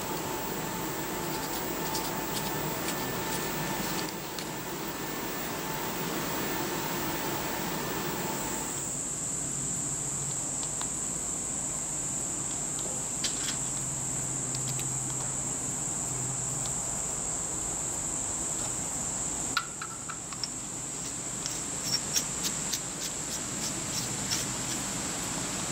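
A steady hiss with a constant high-pitched whine. A few light metallic clicks and taps come as small aluminium fuel-tank parts are handled and fitted together, one about halfway through and a quick cluster near the end.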